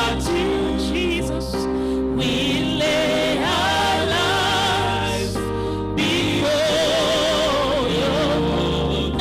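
Gospel worship music: a singer with vibrato over sustained chords and a bass line that shifts every second or two.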